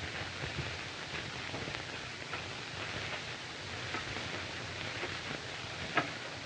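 Steady hiss and crackle of an old film soundtrack, with one sharper click near the end.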